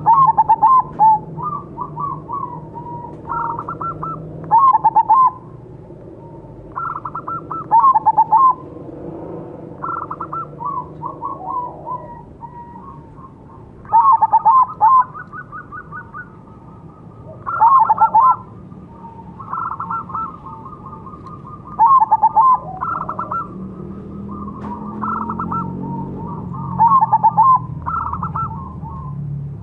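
Crossbred zebra dove (perkutut) cooing: loud phrases of quick staccato notes ending in ringing coos, repeated every two to four seconds, with fainter calls from other zebra doves answering in between.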